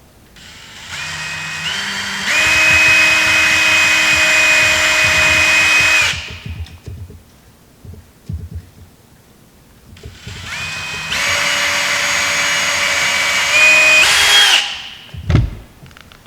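Power drill driving screws into a wooden deck: two runs of the motor, each stepping up in pitch as it speeds up and then cutting off suddenly. A short thump follows near the end.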